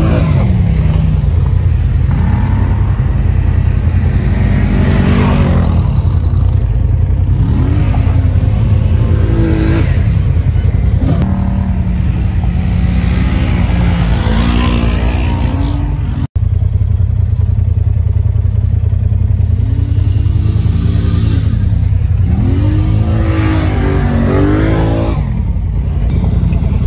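Polaris ATV and Polaris General side-by-side engines revving up and down again and again as the machines spin and slide through loose sand. The sound cuts out for an instant partway through.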